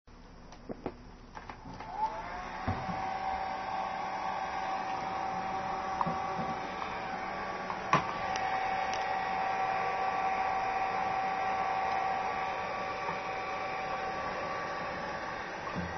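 Hair dryer switched on about two seconds in and then running with a steady whine, drying a freshly shampooed cat's wet fur. A few light knocks come before it and one sharp click about eight seconds in.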